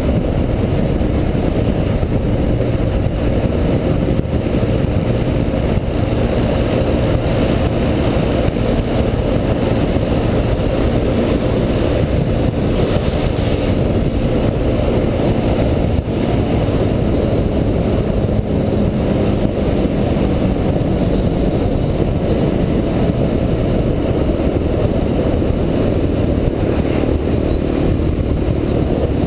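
Quad bike engine running steadily while riding along the road at cruising speed, mixed with a dense low rumble of wind and road noise on the onboard camera's microphone.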